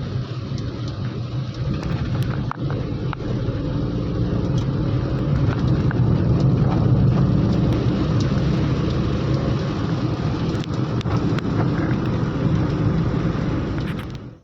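A motor vehicle running steadily: a constant low engine hum with road or wind noise.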